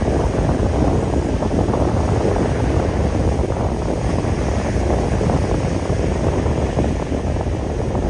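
Wind buffeting the microphone in a steady low rumble, over the wash of gentle surf at the water's edge.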